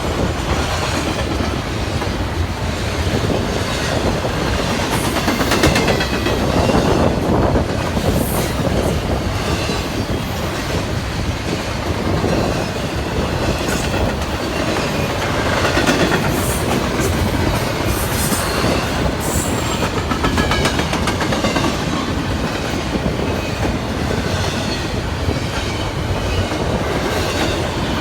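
CSX freight train cars rolling past steadily, wheels clicking over the rail joints. High brief squeals from the wheels come through a few times, about 8 seconds in and again in the middle.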